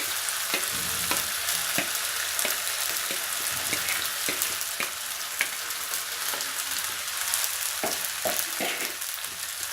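Vegetables frying in hot oil in a kadhai, with a steady sizzling hiss. A spatula stirs them, clicking and scraping against the pan every so often.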